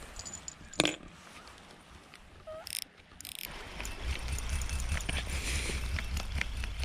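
Fishing reel being cranked to wind in the line, a continuous whirring with many small clicks, starting about halfway through. A single sharp click a little before a second in.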